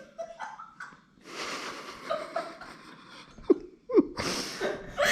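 A person's breathing and short vocal noises between spoken lines: breathy exhalations, two brief falling squeaks, and a sharp breathy burst near the end.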